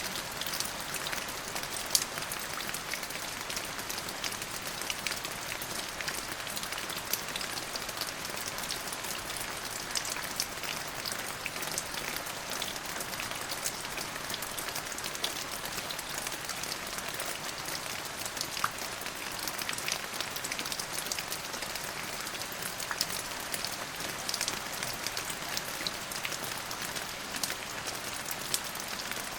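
Steady rain falling on a surface, a continuous hiss dotted with the sharp ticks of individual drops.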